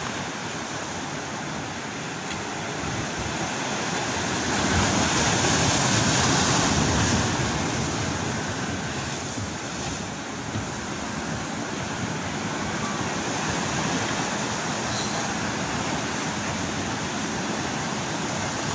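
Sea surf washing against the concrete tetrapods of a harbour breakwater, a steady rushing that swells louder for a few seconds about five seconds in.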